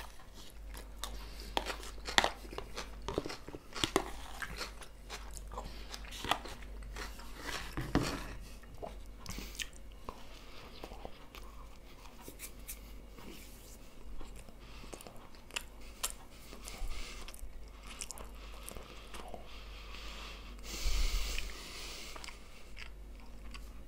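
Close-miked chewing and crunching of food, mostly vegetable salad eaten from a bowl, with short sharp clicks of a fork against a plastic bowl in the first seconds. A short rushing noise comes about 21 seconds in.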